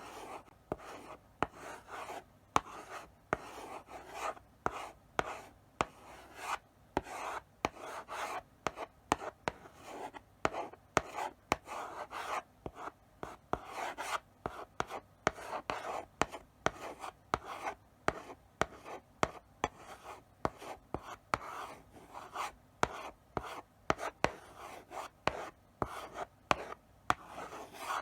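Chalk writing slowly on a blackboard: short scratchy strokes, each broken by sharp taps as the chalk meets and leaves the board, a few each second.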